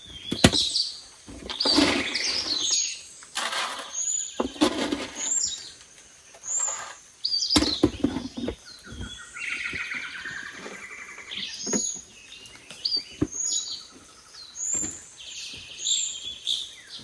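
Birds chirping repeatedly in the jungle, short high calls about every second, with a quick trilling call in the middle. Scattered knocks and rustles of plastic containers and a cooler being handled.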